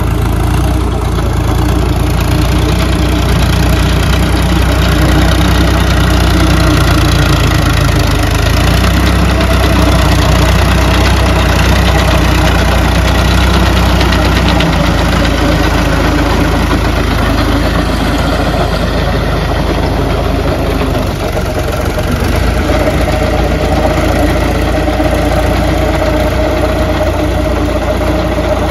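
Powertrac Euro 50 tractor's diesel engine running steadily while it pulls a rotary tiller through a flooded paddy field.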